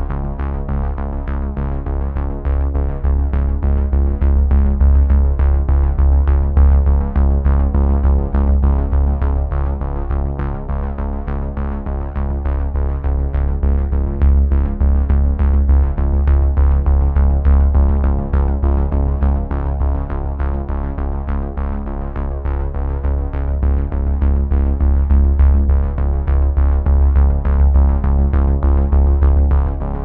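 Electronic background music with synthesizer, strong bass and a steady beat.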